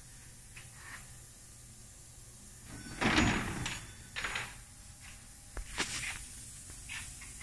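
Handling noise: a low steady hum, then a run of rubbing knocks and rustles about three seconds in, followed by a couple of sharp clicks and a smaller knock near the end.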